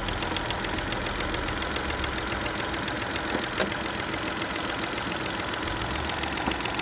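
Car engine idling on CNG, with a rapid ticking rattle from the 5th-generation CNG injector rail. The noise comes from one injector, which the owner puts down to too much spring pressure on its piston.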